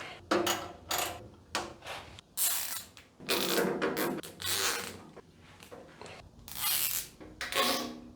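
Irregular rustling and clattering from handling the cord of an LED construction string light while it is draped over a nail, in a series of separate bursts with the longest about halfway through.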